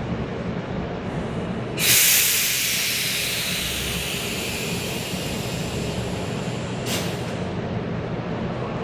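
Sudden loud hiss of compressed air from a stopped Metro train's pneumatic system, fading slowly over several seconds, then a second short hiss, over the train's steady low hum.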